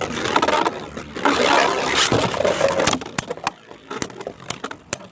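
3D-printed Beyblade spinning tops whirring and scraping across a stadium floor for about three seconds, then a quicker run of sharp clicks as the tops knock against each other.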